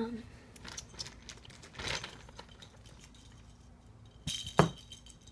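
Cat toys being dangled and shaken, jingling and clinking with a few rustles; the loudest jangle comes about four seconds in.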